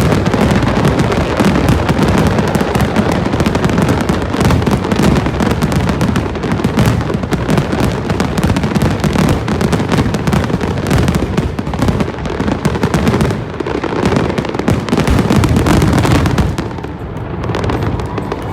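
Fireworks display: a dense, continuous barrage of bangs and crackling, thinning out near the end.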